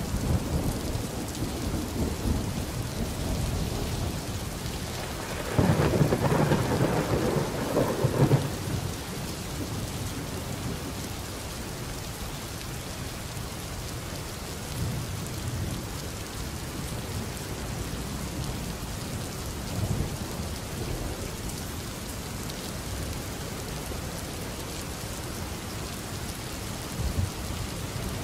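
Steady rain with a roll of thunder starting about five and a half seconds in and lasting about three seconds.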